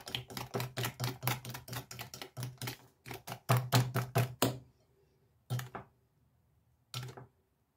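A green balloon whisk beating eggs and sugar in a glass bowl, its wires clicking rapidly against the glass at about six or seven strokes a second. The beating stops about four and a half seconds in, followed by two single taps.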